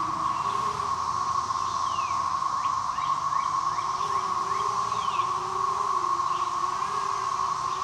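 Small quadcopter's brushless motors (2204 2300 kV) running, their whine wavering up and down in pitch, over a steady tone. Short falling chirps of birds come and go during the middle.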